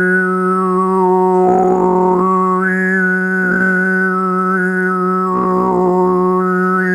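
Overtone (diphonic) singing: a man's voice holds one steady low drone while the whistling overtones above it shift from one pitch to another about every second, sung as a healing chant. The drone runs unbroken, with no breath taken.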